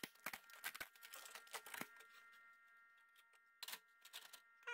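Light clicks and taps of a screwdriver working on the metal casing of a computer DVD drive being taken apart: a quick run of clicks in the first two seconds, then a few isolated ones near the end.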